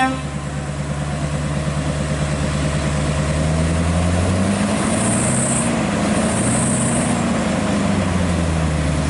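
Scania R580 truck's open-piped V8 diesel pulling, its revs climbing over a few seconds, holding, then easing back down. Two short high hisses come about halfway through.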